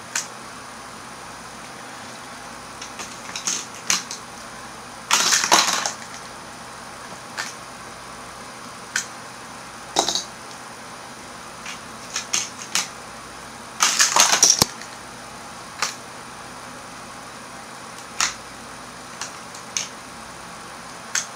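Plastic parts of a Hot Wheels Scorpion Takedown track set clicking and clattering as it is handled and played. There are scattered single clicks and two short rattling runs, about five and fourteen seconds in.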